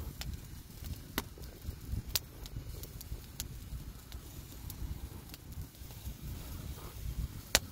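Wood fire crackling, with sharp, irregular pops a second or more apart, the loudest near the end, over a low rumble of wind on the microphone.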